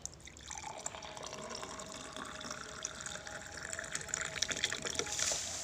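Liquid trickling with many small drips, faint, growing a little louder near the end.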